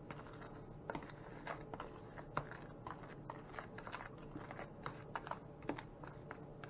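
A utensil stirring dry cornmeal and flour in a plastic container: faint, irregular scrapes and clicks, several a second.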